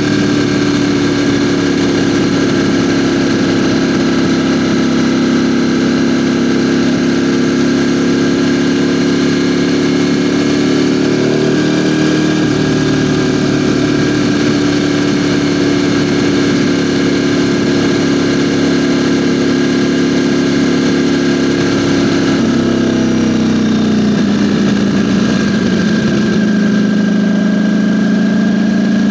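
Ducati Panigale V4's V4 engine running at a steady pitch while the bike is ridden, heard from a mic mounted on the bike. The engine note rises slightly about twelve seconds in, and near the end it drops in pitch as the revs fall, then holds lower.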